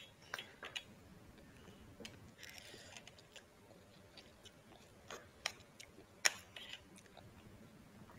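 Quiet eating: a spoon clicking and tapping against a plate, a short slurp of noodles about two and a half seconds in, and chewing.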